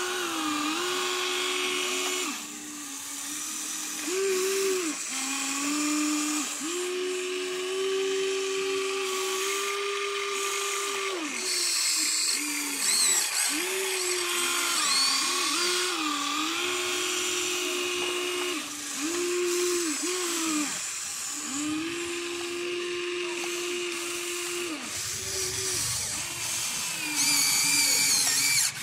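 Huina RC excavator's electric motors whining as it digs and swings: a steady whine that shifts up and down in pitch in steps and stops and starts again every second or few as each movement begins and ends.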